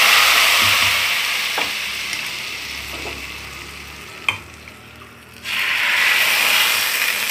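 Hot tempering oil with fried onions and ginger-garlic (baghar) poured from a frying pan into a pot of nahari gravy, sizzling loudly and fading over a few seconds. A single knock about four seconds in, then the rest of the oil is scraped in with a ladle and sets off a second loud sizzle about five and a half seconds in.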